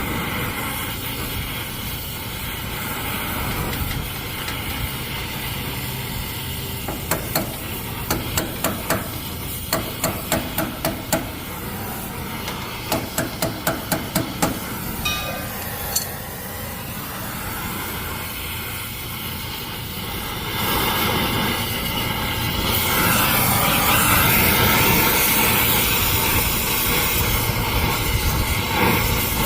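Two runs of sharp knocks, several a second, over steady background noise, the first about a third of the way in and the second near the middle. From about two-thirds in, a loud steady hiss sets in and carries on.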